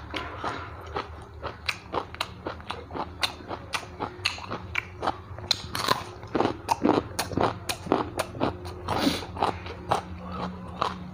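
Close-miked biting, crunching and chewing of a raw carrot, a rapid string of sharp crunches that is busiest in the middle, over a low steady hum.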